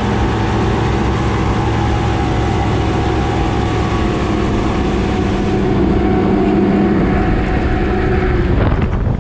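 1999 Evinrude FICHT 150 direct-injection two-stroke outboard running steadily at speed, pushing the boat, with water and wind noise underneath. Its engine note rises slightly past the middle, and near the end the engine tones drop away, leaving mostly wind noise.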